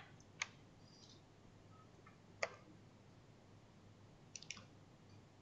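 A few short clicks of a computer mouse over near silence: two in the first half second, one about two and a half seconds in, and a quick pair near the end.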